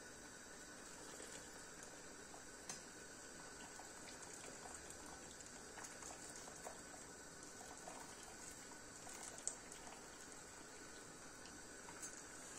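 Faint water sounds from a pot of hot water as a boiled su böreği pastry sheet is lifted out in a mesh strainer: water dripping and trickling back into the pot. There are two light clicks, one a few seconds in and one near the end.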